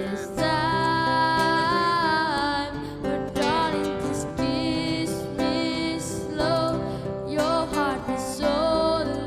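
Background music: a song with a held, wavering melody line over a steady accompaniment.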